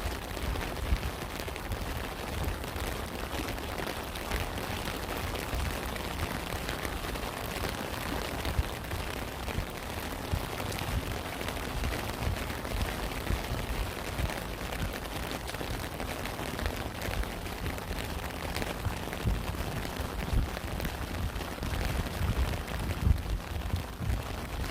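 Steady rain falling: a dense, even patter with irregular low thuds underneath.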